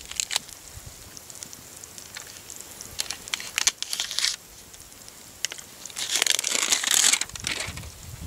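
Deer organ meat cooking in its juices in a pan over wood coals: scattered crackles and pops over a steady sizzle, with two louder bursts of hissing, the longer one near the end.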